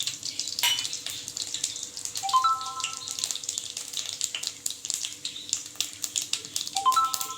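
Whole spices (cinnamon, cloves and fennel seeds) crackling and sizzling in hot sesame oil in a pan. A short rising three-note chime sounds twice, about two seconds in and again near the end.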